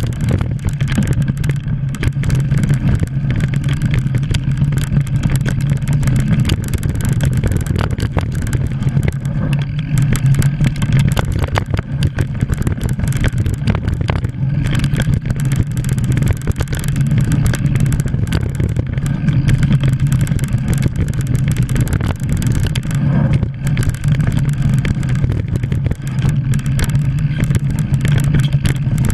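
Mountain bike riding fast down a dirt forest singletrack, heard from a camera mounted on the bike: a steady, loud rumble of tyres and wind on the microphone, with frequent short clatters as the bike hits bumps.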